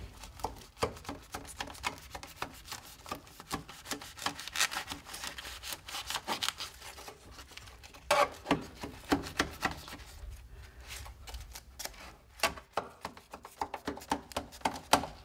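Large knife sawing down through a baked Navajo corn cake (alkaan) topped with dry baked corn husks in a metal pan: a run of short crackling, rasping strokes, loudest about halfway through and again near the end.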